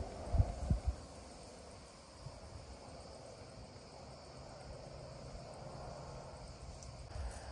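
Steady, faint, high insect chirring, with a few dull low thumps in the first second.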